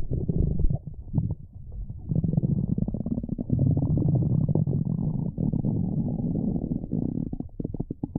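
Human stomach rumbling, low-pitched. It dips for a moment about a second in, then holds one long continuous rumble of several seconds, and breaks up into short separate gurgles near the end.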